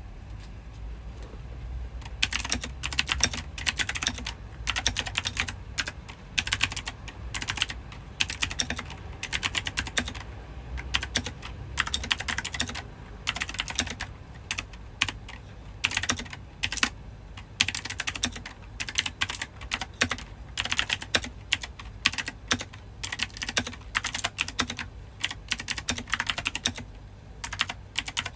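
Typing on a mechanical keyboard fitted with Halloween novelty keycaps: quick runs of keystroke clacks with short pauses between them, starting about two seconds in, over a low steady hum.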